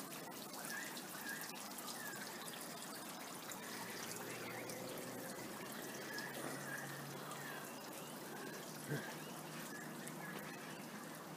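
Small birds chirping in short, repeated high notes over a steady outdoor background hiss, with a single thump about nine seconds in.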